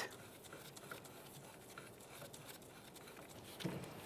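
Faint scattered clicks from a ball joint press being handled into position on an upper control arm, with a couple of slightly louder knocks near the end.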